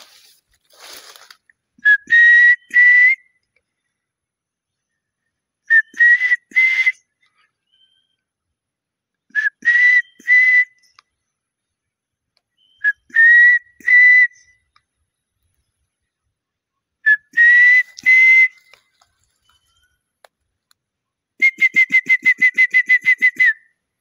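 A man whistling bird-like calls to draw a response from birds: five short rising whistled phrases about every four seconds, then a fast trilled whistle of about a dozen pulses near the end.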